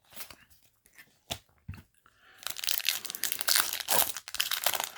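Foil booster pack wrapper being torn open and crinkled: a dense crackling that starts a little over two seconds in, after a few light clicks.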